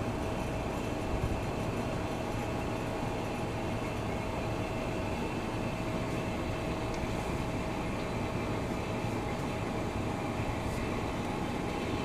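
Hermetic compressor of a General Electric Monitor Top refrigerator running steadily, a continuous hum with one steady tone, a sound the owner finds not very healthy. It is running with its sulfur dioxide charge long since leaked out through a broken line.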